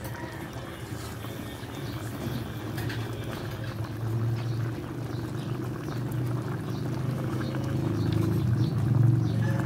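Chicken curry in thick coconut milk boiling hard in a pan: steady bubbling and popping over a low hum, growing louder toward the end.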